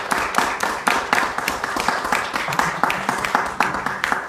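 Guests applauding, many hands clapping together, the applause dying away at the very end.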